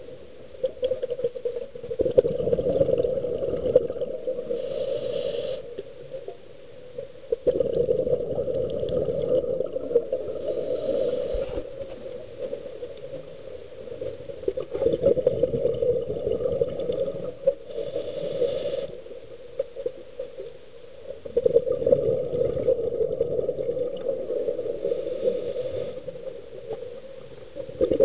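Scuba diver's regulator breathing, heard underwater: about four long noisy bursts of exhaled bubbles, each a few seconds long, with a short hiss of inhalation between them.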